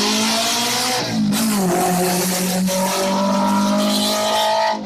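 Historic racing car's engine accelerating hard uphill, its pitch climbing, dropping at a gear change about a second in, then climbing again and holding high.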